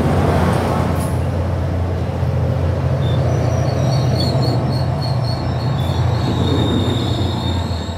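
SunRail commuter train passing close by: a steady low drone from the diesel locomotive and the rush of double-deck coaches rolling past. From about three seconds in, a high wheel squeal pulses roughly three times a second.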